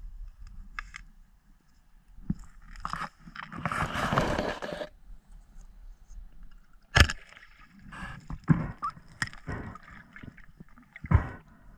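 Underwater movement noise as a diver pushes through reed stems: irregular knocks and scrapes against the camera housing and gear. There is a longer rushing noise about four seconds in, a loud knock about seven seconds in and another near the end.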